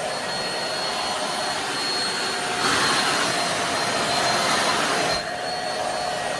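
Dibea handheld bed vacuum cleaner running with a steady whine. It gets louder and harsher for about two and a half seconds in the middle, then settles back to its earlier level.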